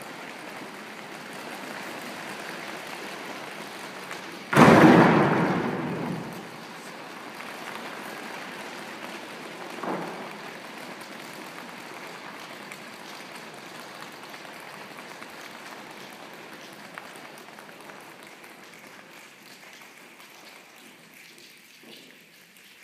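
Audience applause that slowly dies away, with a loud sudden burst about four and a half seconds in and a smaller one near ten seconds.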